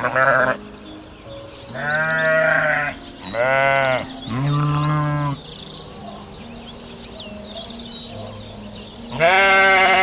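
A farm animal bleating five times: wavering, pitched calls each under about a second long, with the last near the end. Steady low background notes and faint high chirps run underneath.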